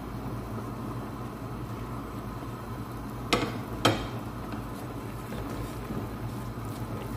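Minced red meat frying in a pot with a low, steady sizzle. About halfway through come two sharp knocks about half a second apart, as ground spices and a stock cube are added.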